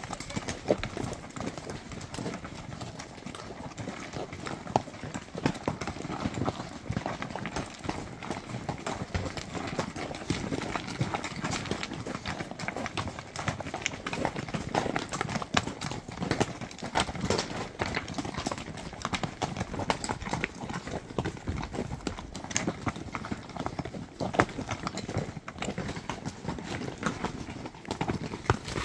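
Horses walking in single file on a loose, rocky trail: an irregular, continuous clip-clop of hooves knocking and scraping on stones, with the rider's own horse closest.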